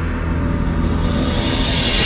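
Electronic dance music from a progressive house DJ mix at a build-up: a sustained bass under a noise sweep that rises and brightens, breaking into a pulsing beat right at the end.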